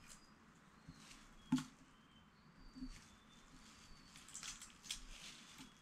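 Faint crackling and clicking of eggshell being picked off a hard-boiled egg by hand, with light plastic crinkling; one sharper click about a second and a half in and a cluster of crackles near the end.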